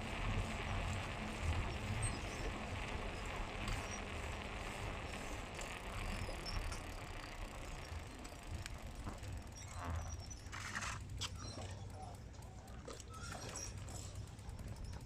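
Bicycle riding noise: a steady rush of wind and tyre rumble that eases after about six seconds, with scattered clicks and short rattles near the middle.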